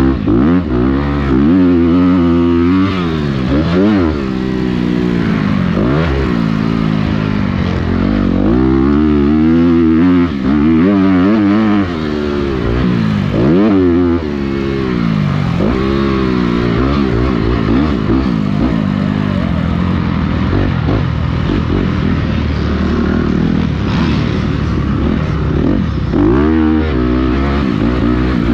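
Motocross dirt bike engine at racing speed, heard on board, its pitch climbing and dropping again and again as the throttle is opened and shut through the turns and gear changes.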